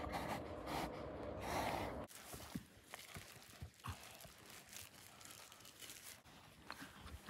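Soft rustling and crunching handling noise, denser in the first two seconds, then scattered light clicks and knocks.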